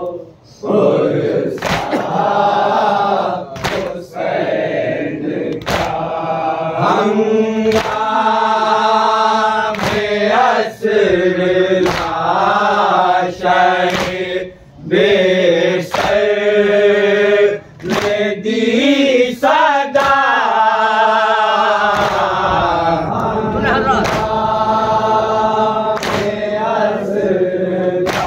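A group of men chanting a noha, a mourning lament for Husain, together in a slow melodic recitation. Sharp slaps, the chest-beating of matam, land about every two seconds, keeping time.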